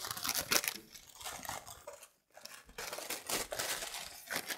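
Tissue paper crinkling and rustling as hands fold it back and dig into a box's shredded paper filler. There are irregular crackles with a brief pause about two seconds in.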